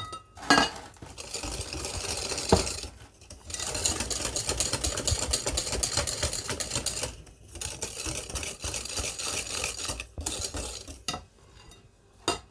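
Metal balloon whisk beating eggs and sugar fast in a glass bowl, the wires rattling against the glass in a rapid, steady beat. It breaks off briefly a few times and stops about a second before the end.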